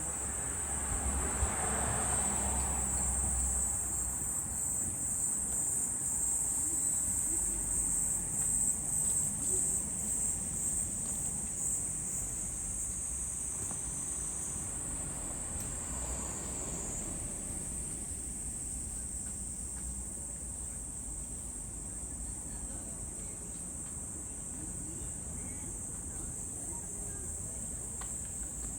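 Summer insect chorus: a steady, high-pitched shrill drone from many insects at once.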